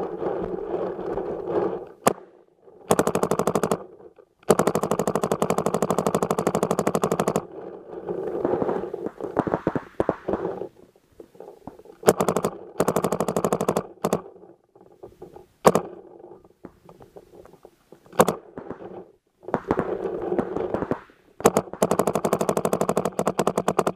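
Dye DM13 paintball marker firing rapid strings of shots in several bursts, the longest about three seconds, with scattered single shots between.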